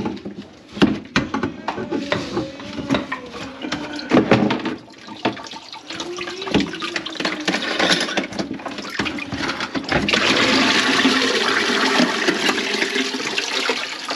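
Knocks and clatter as the sink's drain pipe fittings and a bucket are handled, then, about ten seconds in, a steady rush of water pouring out of the disconnected kitchen sink drain into a bucket. This is standing water held back by a grease clog in the drain line.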